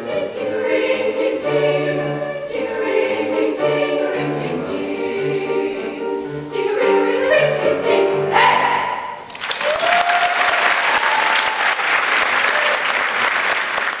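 Women's choir singing with piano accompaniment, ending on a held final chord about nine seconds in; the audience then breaks into steady applause.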